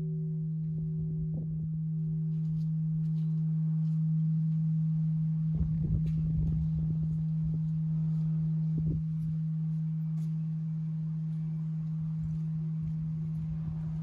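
Large bronze Japanese temple bell (bonshō) ringing on after a strike: one steady low hum that holds throughout, its higher overtones dying away in the first few seconds. A low rumble comes and goes around the middle.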